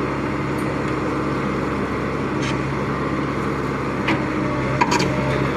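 Excavator's diesel engine running steadily, with a few short sharp knocks over it, about halfway through and near the end.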